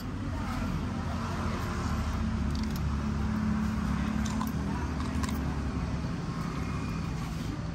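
Engine of a road vehicle running, a steady low rumble that grows louder through the middle and eases off near the end, with a few light clinks of a metal spoon against a ceramic noodle bowl.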